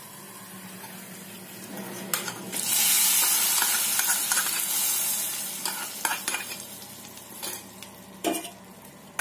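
Hot oil tempering of mustard seeds, dried red chillies, shallots and curry leaves sizzling as it is poured into hot sambar: a loud hiss starts about two and a half seconds in and dies away over the next few seconds. A metal spoon clinks and scrapes against the small pan.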